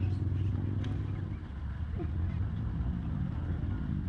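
An engine running with a steady low hum.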